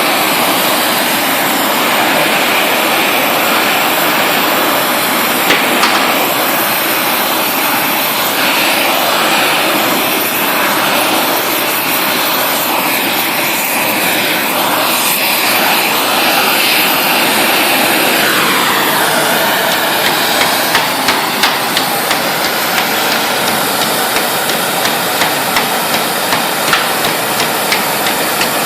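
Oxy-acetylene torch with a #10 rosebud heating tip roaring steadily. From about two-thirds of the way in, a run of hammer strikes on the hot steel comes about twice a second.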